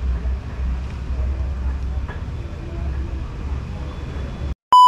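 A steady low rumble with faint voices in the background, like the inside of a moving vehicle. It cuts off abruptly near the end, and a loud, steady electronic beep begins.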